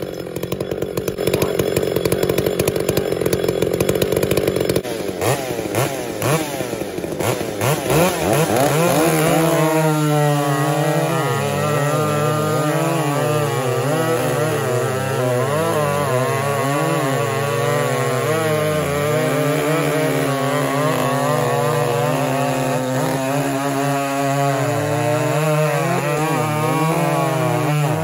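Big vintage two-stroke chainsaw revving up several times, then running at full throttle as it cuts through a large log. Its pitch dips and recovers as the chain loads up in the wood.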